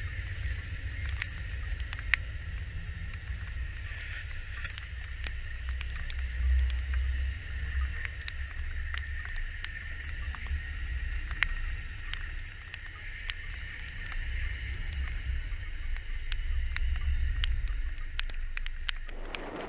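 Amtrak passenger cars rolling past close by: a low pulsing rumble of steel wheels on rail with a steady high ring and scattered sharp clicks. About a second before the end it changes abruptly to a louder rushing noise.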